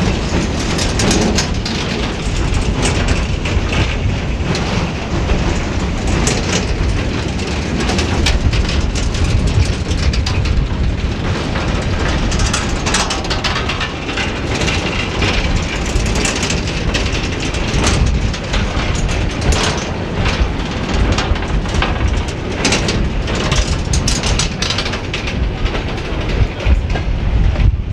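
A rake of steel open mineral wagons, with a brake van at the rear, rolling past at close range. Their wheels and couplings keep up a steady rumble with constant clicking and clanking.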